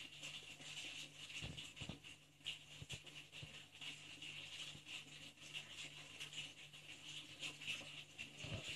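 Quiet room tone: a steady low hum with a few faint clicks.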